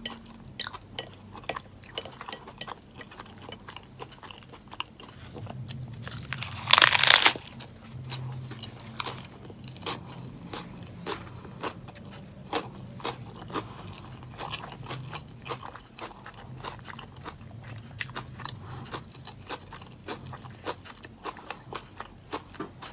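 Close-up chewing of a lettuce-wrapped meatless burger: a steady run of small wet crunching clicks, with one much louder crunch lasting under a second about seven seconds in.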